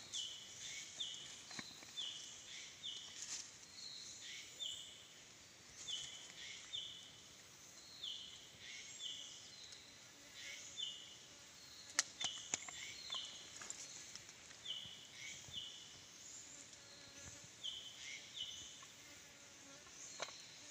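Insects calling in short buzzy chirps, often in pairs, repeating about once a second throughout, with one sharp click about twelve seconds in.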